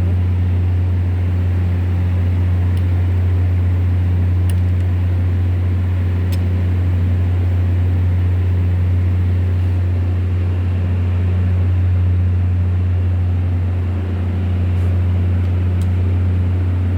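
Volvo Penta TWD1463GE six-cylinder turbo-diesel generator engine running steadily with a loud low hum; the owner reports the engine misfiring.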